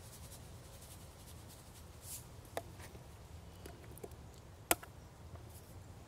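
Salt and pepper shakers handled and shaken over a cast iron Dutch oven: a brief faint rattle about two seconds in and a few sharp clicks, the loudest near the end.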